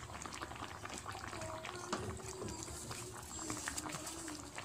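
Chicken and pineapple stew in an evaporated-milk sauce simmering uncovered in a pan, bubbling and popping with many small pops, while a wooden spatula stirs through it.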